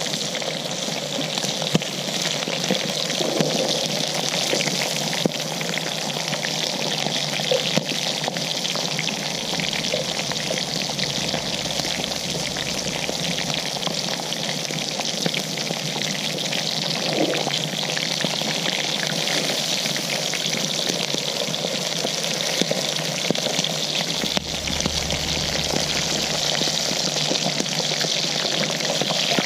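Potatoes frying in hot oil: a steady, even sizzle.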